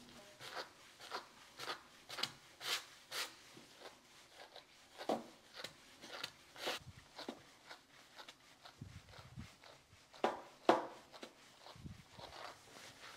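Slicker brush raking through a Ragdoll cat's long coat: short scratchy strokes about two a second in runs, the loudest pair about ten seconds in, with a couple of soft low thuds between.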